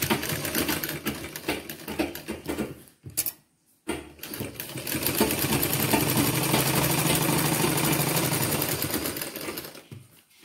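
Sewing machine stitching a seam in two runs: a short run, a brief stop about three seconds in, then a longer steady run of about six seconds that slows to a stop near the end.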